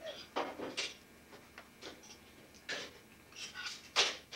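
A scatter of short, irregular clicks and ticks, about a dozen in all, the loudest near the end.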